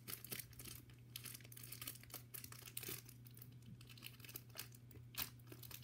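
Thin plastic bag crinkling and tearing as it is opened by hand, in faint, irregular crackles.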